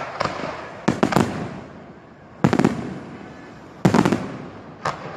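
Fireworks shells bursting overhead: a series of sharp booms about a second apart, some landing in quick clusters, each trailing off in a fading rumble.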